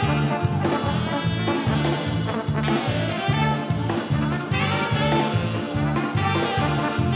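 Up-tempo brass band music with a steady bouncing bass beat, about three notes a second.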